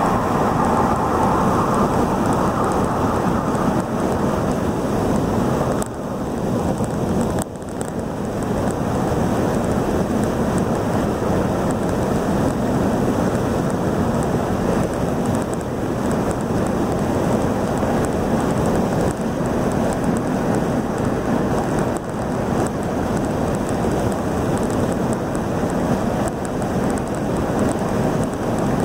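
Steady rush of wind and tyre noise inside a car cruising at highway speed, dipping slightly for a moment about six to eight seconds in.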